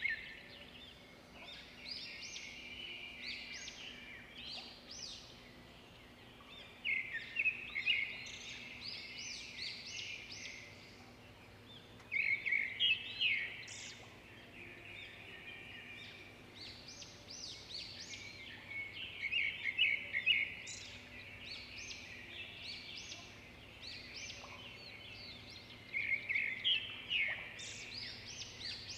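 A metal spoon beating dalgona coffee paste by hand in a mug as it thickens into foam: quick, rhythmic scraping and clicking strokes against the mug, in runs of a few seconds with short pauses between.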